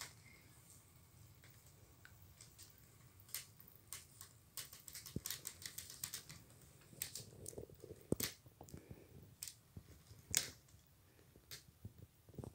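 HO scale model train rolling past on its track, its wheels clicking irregularly over the rail joints, over a faint low hum.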